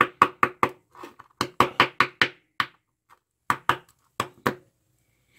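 Knife blade tapping and chipping at brittle, cracking epoxy on an old paper capacitor: a quick run of sharp clicks, another cluster about a second and a half in, then a few single knocks near the end.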